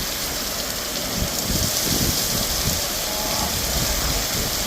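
Heavy rain pouring steadily during a severe thunderstorm, with a low rumble underneath.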